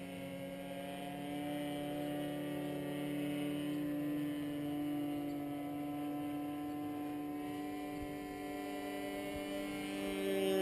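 Internal-combustion engine of a radio-controlled Ultimate aerobatic biplane droning in flight, its pitch slowly drifting up and down as it manoeuvres, and growing louder near the end.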